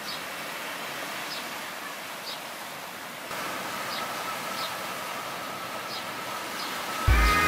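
Ocean surf washing on the beach as a steady hiss, with short high chirps about once a second. A steady high tone joins about three seconds in, and music starts loudly near the end.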